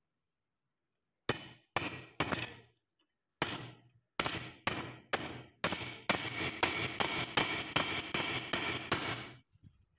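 Hammer striking a steel hand saw blade on a bench vise: a run of sharp, ringing metal blows, about two a second at first and coming faster and closer together over the last few seconds.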